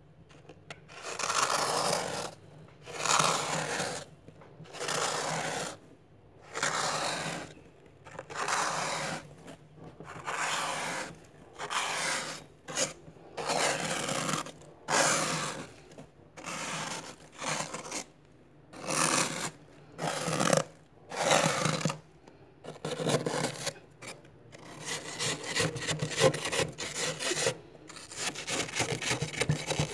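Plastic card scraping a thick build-up of soft frost off a freezer's inner wall, in a steady run of separate strokes about one every second or so. Near the end the strokes turn into quick, short scratches.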